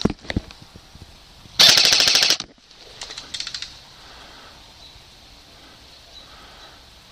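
Airsoft rifle firing a loud rapid full-auto burst lasting under a second, followed about a second later by a shorter, quieter burst. A couple of sharp knocks come just before.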